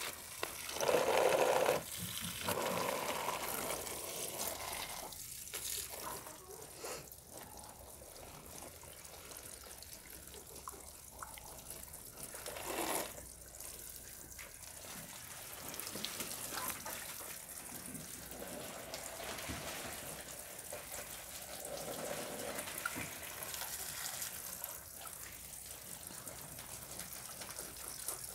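Water pouring from a watering can onto potted plants, splashing over leaves and soil and trickling off the pots, loudest in short spells near the start and about halfway through.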